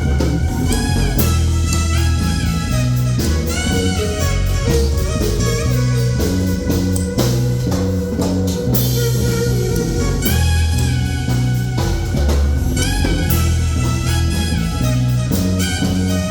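Band music: bass and drum kit keeping a steady beat under guitar and a melody line.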